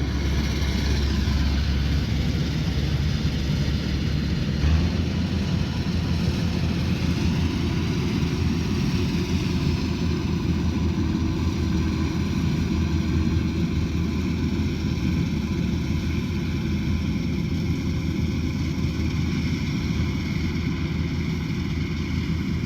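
Rice combine harvester's engine running steadily under load, with a brief knock and a change in its low note about five seconds in.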